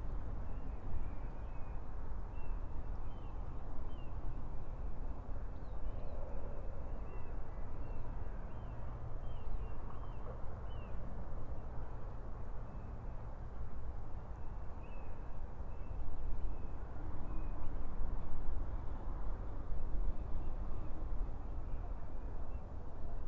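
Outdoor ambience: a steady low rumble like wind on the microphone, with faint, scattered bird chirps.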